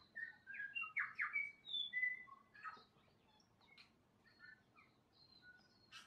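New Zealand bellbird singing: a quick, loud run of clear notes over the first two and a half seconds, then fainter scattered notes.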